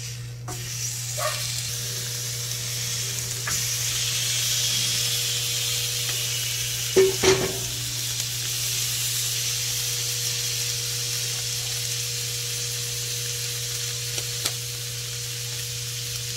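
Marinated chicken wings on bamboo skewers sizzling on the hot grates of a gas grill: a steady hiss that starts about half a second in and grows over the next few seconds. Two sharp knocks about halfway through and a click near the end, over a steady low hum.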